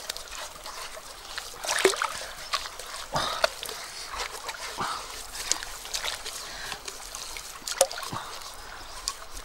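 Bare hands digging wet mud out of a riverbank at the waterline: irregular wet squelches and splashes, with water trickling and plopping, the sharpest splashes a little under two seconds in, about three seconds in and near the end.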